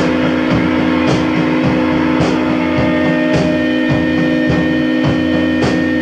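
Rock music: guitar and a drum kit playing a steady beat over the continuous drone of a running vacuum cleaner.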